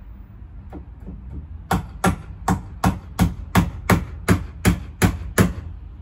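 Hammering on wood: a few light taps about a second in, then a steady run of about eleven sharp blows, roughly three a second.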